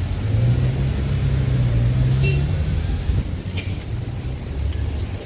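A motor vehicle's engine running close by, a low steady hum that rises a little in pitch and then fades about three seconds in, with a couple of light clicks.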